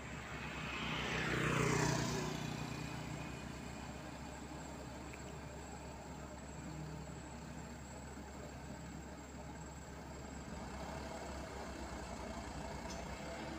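Diesel engines of a Komatsu mini excavator and a dump truck running steadily. About two seconds in a vehicle passes close by, swelling and falling in pitch as it goes. Near the end the dump truck's engine picks up as it pulls away, puffing smoke.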